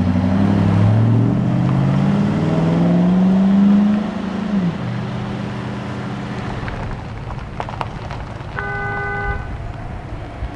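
A car engine revving up as the car pulls away, its pitch rising steadily for about four seconds and then dropping off. About eight and a half seconds in, a short car horn toot.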